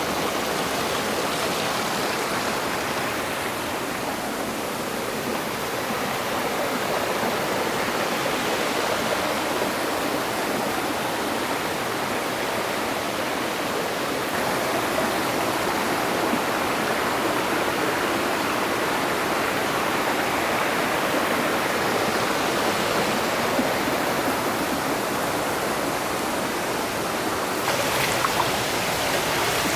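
Water of a rocky mountain stream rushing steadily over stones, with a brief knock near the end.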